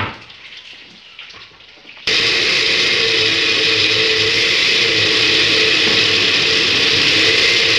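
Osterizer glass-jar blender puréeing boiled green tomatoes and serrano chiles into salsa: about two seconds in its motor runs loudly and steadily at full speed, the liquid churning in the jar.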